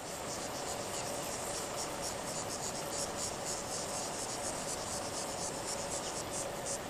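Insects calling in a high-pitched chorus with a fast pulsing rhythm, over a steady low hum.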